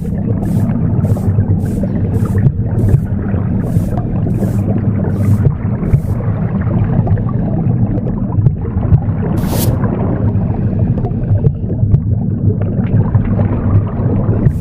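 Womb sound, a steady low whooshing rumble, mixed with a broom sweeping in regular brisk strokes about two a second. The sweeping stops about six seconds in, with one lone stroke a little after nine seconds.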